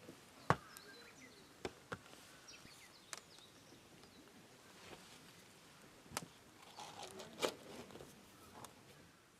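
Quiet outdoor background with a handful of short, sharp clicks and knocks at irregular intervals, the loudest about half a second in.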